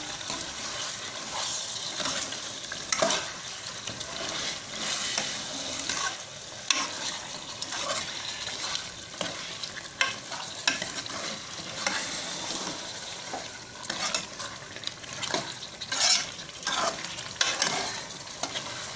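Chicken pieces frying with spice masala in ghee and butter in a steel pot, with a steady sizzle, while a metal ladle stirs them, scraping and knocking against the pot at irregular moments.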